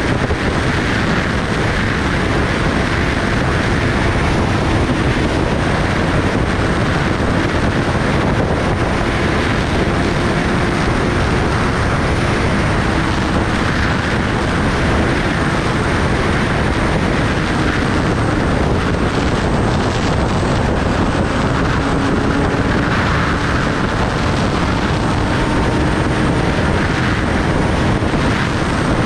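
Kawasaki Ninja ZX-10R's inline-four engine holding a steady, slowly drifting note at cruising speed under a loud, constant rush of wind noise.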